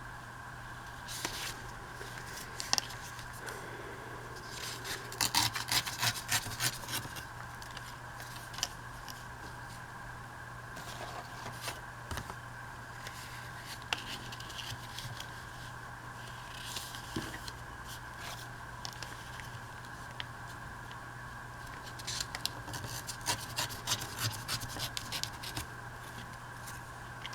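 Paper being cut, in two bouts of quick, crisp cutting strokes, about five seconds in and again near the end, with lighter paper handling and scraping between. A steady low hum runs underneath.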